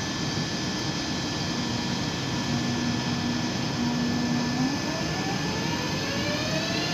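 ICE 3 electric high-speed train pulling away, its traction motors and converters whining over a steady rolling hum. A low steady tone sounds through the middle, then several whining tones rise in pitch together from about two-thirds of the way through as it gathers speed.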